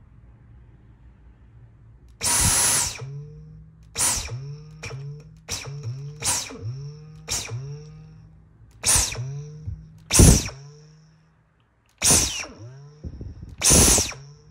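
Dyson vacuum cleaner motor switched on and off in quick bursts, about a dozen times. Each burst is a rush of air with a short whine that rises and falls, a ray-gun-like sound.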